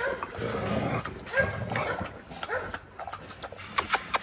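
French bulldogs vocalizing: several short calls that rise and fall in pitch, over a low rough rumble. A few sharp clicks come near the end.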